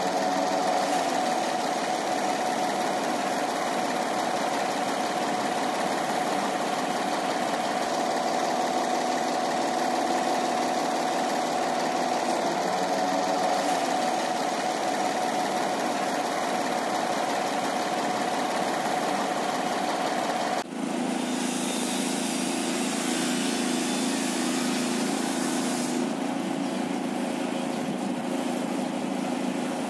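Klintsy truck crane's engine running steadily while the boom hoists a steel cage, with a steady whine over the engine note. About two-thirds of the way through, the sound switches abruptly to a more distant, lower engine hum.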